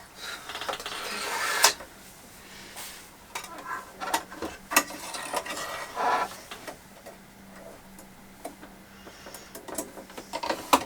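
Handling noises of rethreading a Brother A150 sewing machine: scattered clicks, snaps and short rustles of thread and plastic parts. There is one rustle building up over the first second and a half and ending in a sharp click. No stitching runs.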